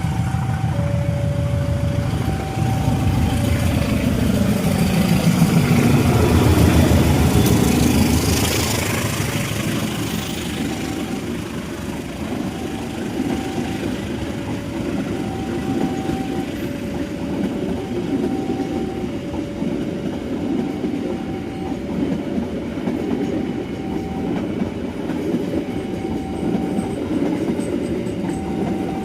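A train passes. The locomotive's rumble builds to its loudest about six seconds in and drops in pitch as it goes by, followed by the steady clatter of the carriage wheels. Throughout, a two-note level-crossing warning alternates high and low about once a second.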